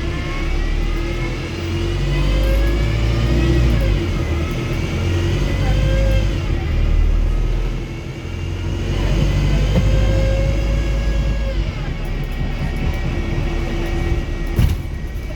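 Wrightbus StreetDeck hybrid bus's Mercedes-Benz OM934 four-cylinder diesel pulling through the gears of its Voith automatic gearbox: the engine and drivetrain whine climbs in pitch and drops back at each upshift, twice early on. It eases off briefly, then climbs again and settles to a steady run, with a single sharp knock near the end.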